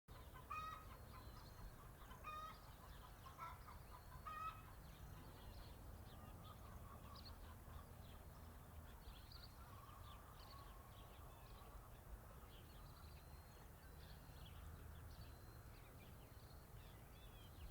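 Chickens clucking and squawking, with several louder calls in the first four or five seconds. Many short, high chirps run throughout over a steady low rumble.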